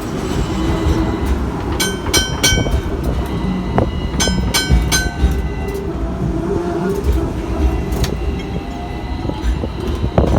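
Hong Kong double-decker tram running on its tracks with a steady low rumble. Short high dings ring out about two seconds in and again about four and a half seconds in, fitting the tram's 'ding ding' bell.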